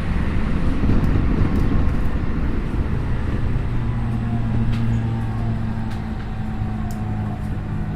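Interior running sound of a Tokyu 5050 series electric train car, heard at the car end: a steady rumble of wheels on rail. A low hum grows steadier about three seconds in, and a few faint clicks come through.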